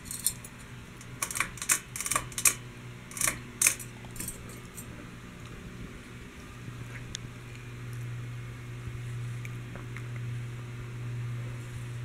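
Metal ceiling-fan pull chain jingling and clicking as it is handled, over a steady low motor hum. About six and a half seconds in, the hum of the 52-inch GEV ceiling fan grows louder and holds steady as the blades spin.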